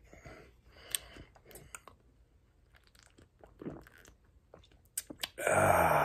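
A man swallowing beer from a glass bottle: soft gulps and small mouth and bottle clicks. Near the end comes a loud breathy exhale about a second long.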